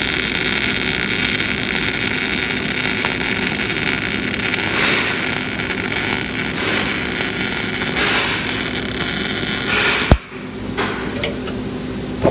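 MIG welding arc on thin steel plate, a steady hiss that runs for about ten seconds and then stops suddenly with a sharp click as the arc is cut off.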